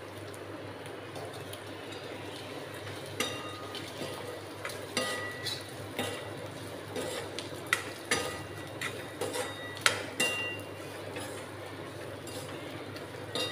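Steel spoon stirring sprouted moong beans in a steel kadhai, with a run of sharp metallic clinks and taps that ring briefly as the spoon strikes the side of the pan. The clinking starts about three seconds in and goes on until near the end.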